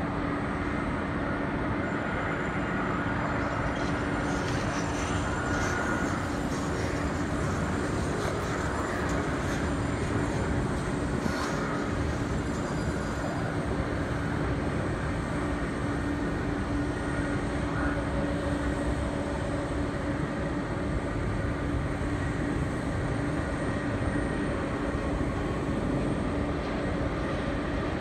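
Steady drone of jet aircraft engines and auxiliary power units around an airport apron, with a constant low hum and no single event standing out.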